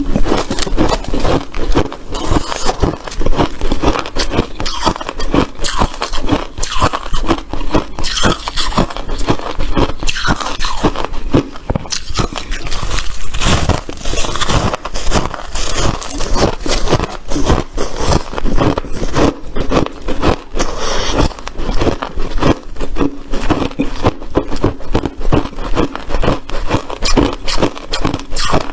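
Crunchy white ice crunching and scraping in a continuous run of sharp crunches, several a second.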